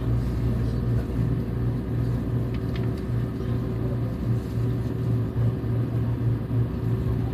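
Inside the passenger cabin of a Seibu 001 series Laview electric limited express as it moves off from the station: a steady low rumble from the running gear with a steady hum, and a few faint ticks about two and a half seconds in.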